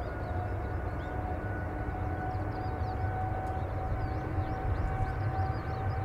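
Boeing 777-300ER's GE90-115B turbofan engines running at taxi power: a steady high whine that creeps slightly up in pitch, over a low rumble.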